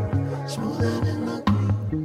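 Background music with a bass line and drum hits.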